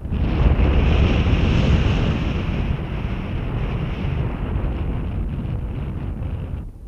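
Airflow rushing over an action camera's microphone on a paraglider in flight: a steady, rough wind rush, loudest in the first couple of seconds and easing a little after.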